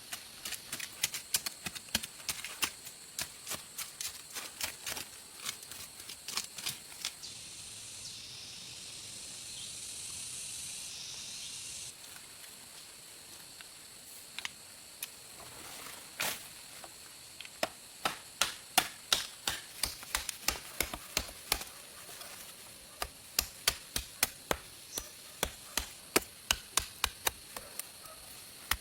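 A long series of sharp chopping or knocking strikes on wood, about two a second by the end. A steady high hiss rises for a few seconds in the middle.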